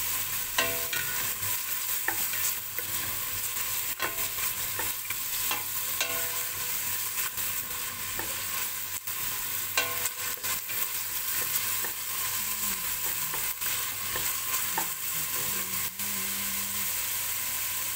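Diced carrots and onion sizzling in olive oil in a stainless steel pot, stirred with a wooden spatula that scrapes and taps against the pot now and then over a steady frying hiss.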